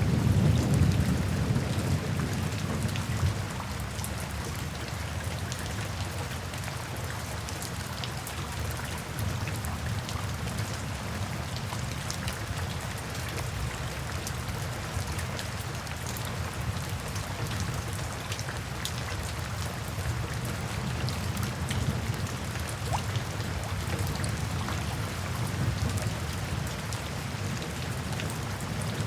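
Steady rain falling, with individual drops ticking sharply on a surface. A low rumble of thunder fades away in the first few seconds.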